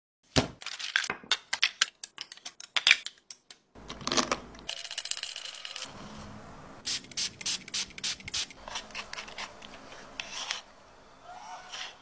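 Close-up clay-preparation sounds: a rapid run of crinkling, crackling clicks from plastic wrap on a block of clay, then a metal rod scraping and rubbing through dry, crushed clay grit on a board, with scattered clicks.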